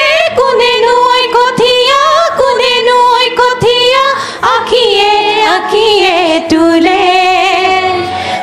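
A group of young women singing an Assamese song together into handheld microphones. The second half holds long notes with a wavering vibrato.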